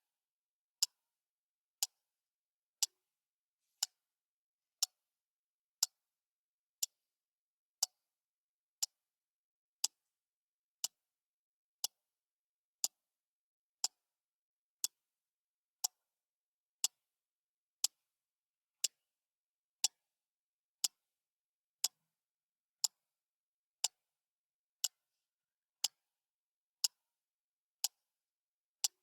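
Clock ticking steadily, one sharp, crisp tick about every second with silence between the ticks.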